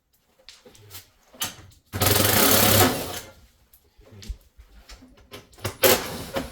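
Cordless drill/driver running in one short burst of about a second, about two seconds in, with scattered clicks and knocks of parts being handled before and after and a sharper knock near the end.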